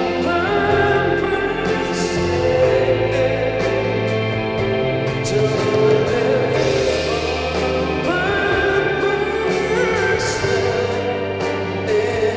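A man singing lead vocals into a microphone in a pop-rock song, over a band with sustained chords and cymbal hits.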